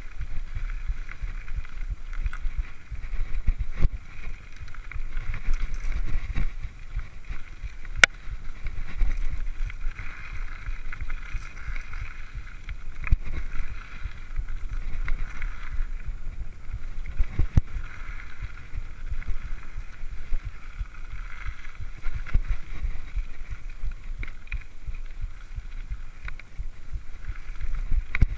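Mountain bike ridden fast down a dirt singletrack: wind rumbling on the microphone over the rolling tyres, with frequent sharp knocks and rattles as the bike hits bumps, the loudest about eight seconds in and again around seventeen seconds.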